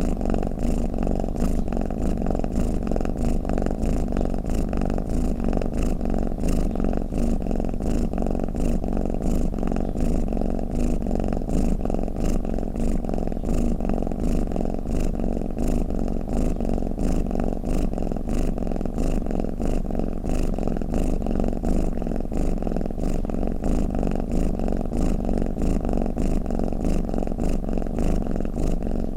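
Domestic cat purring: a continuous low, fast-pulsing rumble that holds steady without pauses.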